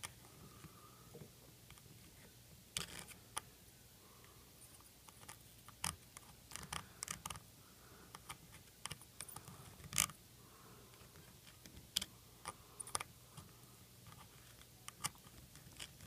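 Faint, irregular small clicks and scrapes of a soldering iron tip worked back and forth over a dock connector's solder joints, mixing in low-melt alloy solder to loosen the connector for removal. A faint steady low hum sits underneath.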